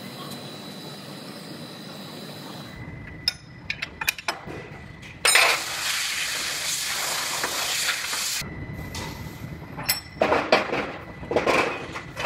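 Clinks and clanks of steel frame-rack fixtures being handled and fitted under a truck, in scattered quick clusters, with a loud steady hiss of about three seconds in the middle.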